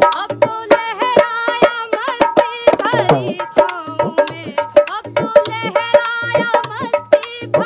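A woman singing along to a dholak, the two-headed barrel drum, played with the hands in a steady, busy rhythm of sharp slaps and low thumps.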